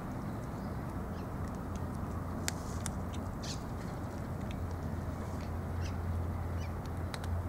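Cats crunching dry cat food, heard as scattered short clicks, over a steady low hum that grows louder about halfway through, with a few short bird calls.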